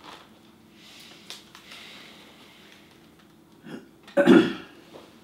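A person's short, loud throat noise about four seconds in, with a softer one just before it.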